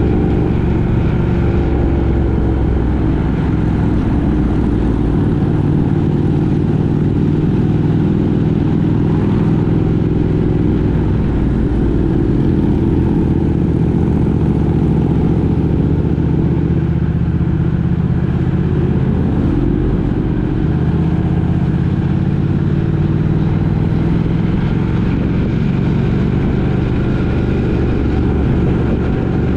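Road vehicle engine running during a drive, its pitch drifting slowly up and down, over steady road noise.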